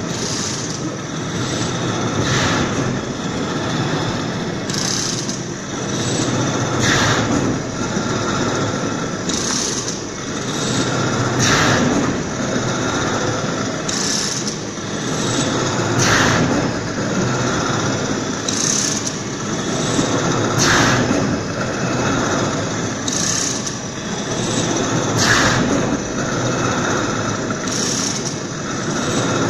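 Horizontal veneer slicing machine running steadily, with a sharp cutting stroke about every two and a quarter seconds as the knife shaves a sheet of veneer off a wooden flitch.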